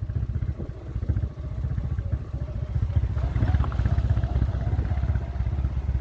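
Motorcycle running as it is ridden along a rough dirt road, with wind rumbling on the microphone. An engine note comes up more clearly about halfway through.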